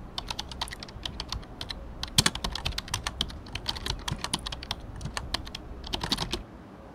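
Typing on a computer keyboard: a quick, irregular run of key clicks that stops shortly before the end.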